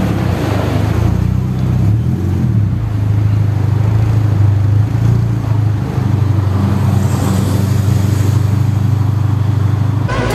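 Car engine running steadily, its pitch rising and falling slightly about two seconds in.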